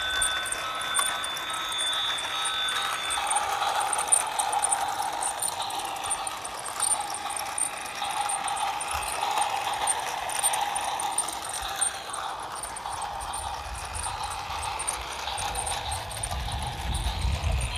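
Battery-powered toy train running around a plastic track: its small motor whirs while the wheels rattle and click over the track. A steady high tone sounds for the first three seconds, and a low rumble comes in near the end.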